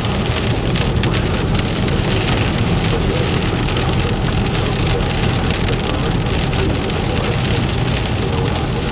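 Steady rain: many small drop hits over a continuous low rumble, with no break or change in the sound.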